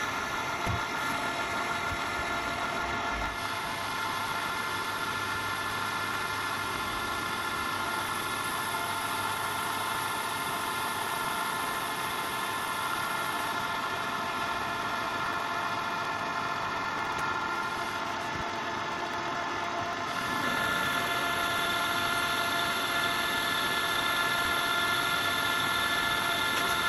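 Metal lathe running under power with a steady whine, its insert tool cutting a pulley blank. The sound steps up a little louder and brighter about 20 seconds in.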